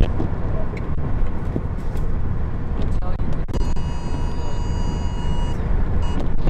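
Steady low rumble of a vehicle driving, heard from inside. A steady high tone sounds for about two seconds in the middle.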